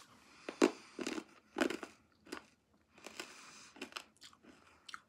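Toxic Waste sour hard candy being bitten and crunched between the teeth: a run of short, sharp, irregular crunches.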